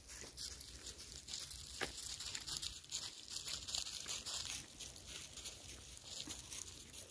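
Continuous crackling and rustling on a handheld phone's microphone while the person holding it walks, loudest in the middle of the stretch.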